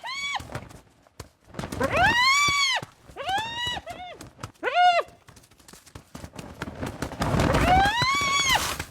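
Spotted hyenas calling during a confrontation: a series of high yelps, each rising and then falling in pitch, with short pauses between them, and a rougher scuffling noise under the last call near the end.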